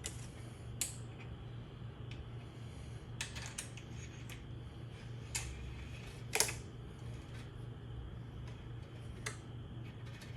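Scattered light clicks and metal taps, the loudest about six seconds in, over a steady low hum: the factory coil spring being drawn up out of a Honda CRF125F front fork tube.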